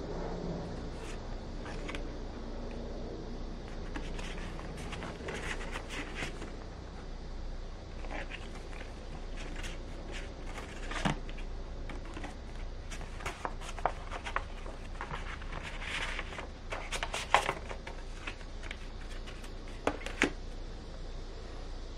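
Stiff printed cardboard art cards and a card sleeve handled by hand: sliding, shuffling and scraping against each other and the stack. A few sharper taps come in the second half.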